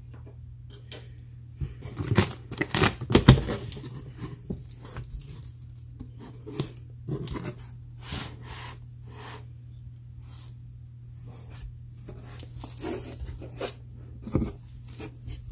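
Packing tape on a cardboard shipping box being slit and torn open: a run of sharp rips and scrapes, loudest about two to three seconds in, with scattered further rips as the tape and cardboard flaps are pulled back.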